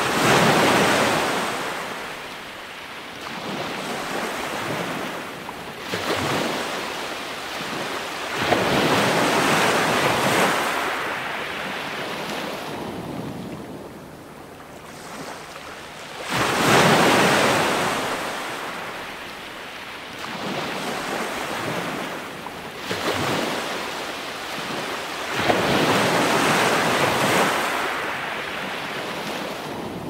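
Ocean surf: waves breaking and washing in, the roar swelling and falling away in a slow cycle. Four big surges come about every eight to nine seconds, with smaller washes between.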